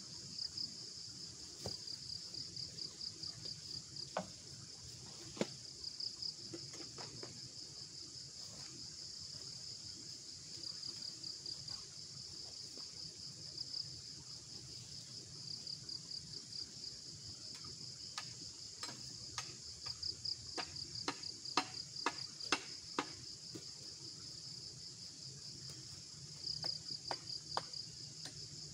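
Crickets chirping in a steady, fast-pulsing high trill, with scattered sharp clicks and knocks that come thickest in the second half.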